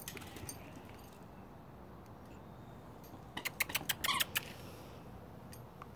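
A puppy mouthing a squeaky rubber toy ball: a quick cluster of sharp clicks and a few short squeaks, about three and a half to four and a half seconds in.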